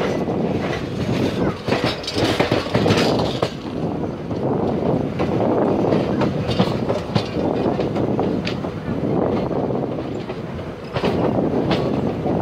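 Indian Railways passenger coach rolling slowly along the track, heard from the coach's window: a steady rumble of wheels on rail, broken by irregular clicks and clacks as the wheels pass over rail joints and pointwork.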